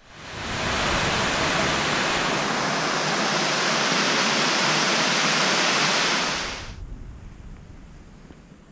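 Waterfall rushing steadily as it cascades down stepped rock ledges. It swells up over the first second and falls away about two-thirds of the way through, leaving a much quieter background.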